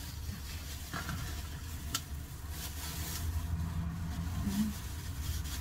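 Plastic bag rustling as crumbly cottage cheese is shaken out of it into a stainless steel bowl, over a steady low hum, with two light clicks about one and two seconds in.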